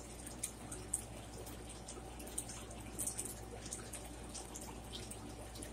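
A person chewing food quietly with the mouth closed, with small wet clicks and smacks scattered through, over a steady low hum.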